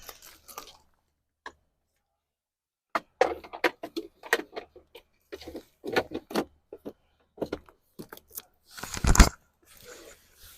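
Plastic dashboard trim and wiring connectors being handled: a quick run of clicks, rattles and rustles, with a heavier knock about nine seconds in.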